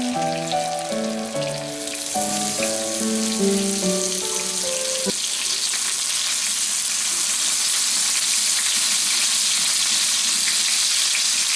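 Lamb chops frying in a pan, a steady sizzling hiss that grows stronger after the first couple of seconds. A tune of held notes plays over the first five seconds and then stops.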